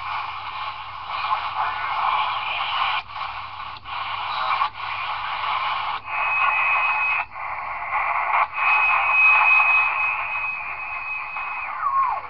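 Converted Cobra 148F CB radio receiving on the 40-meter band as it is tuned: static hissing from its speaker, broken by several brief dropouts. Twice in the second half a steady high whistle sounds over the static, and near the end it slides down in pitch as the tuning is turned.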